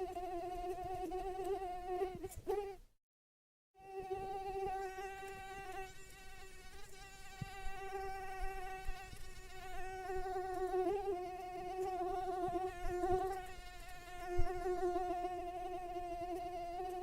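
Mosquito wing whine: a steady, slightly wavering buzz with a rich overtone series. It cuts out completely for just under a second about three seconds in, then resumes.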